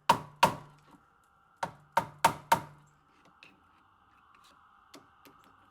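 Six sharp knocks, struck hard on door or lock hardware: two in the first half-second, then four about a third of a second apart around two seconds in, followed by a few faint clicks.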